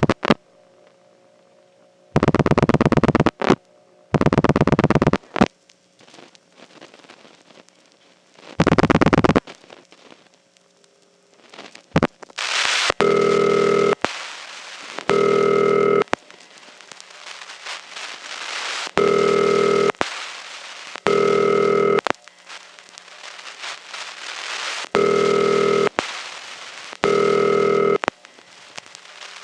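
A telephone call through a number one step exchange. First come three bursts of rapid clicking as the number is dialled and the step switches follow. Then a hissy line opens and a buzzy ringback tone sounds in pairs, a double ring repeating about every six seconds.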